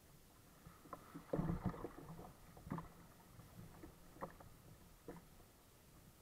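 Kayak paddling: double-bladed paddle strokes splashing and knocking against the sailing kayak's hull. The loudest cluster of splashes comes about a second and a half in, followed by single strokes about every second and a half.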